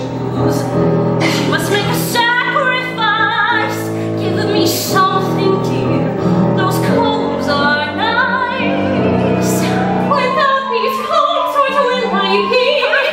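Sung number from a live stage musical: operatic-style singing with wavering vibrato over sustained instrumental accompaniment.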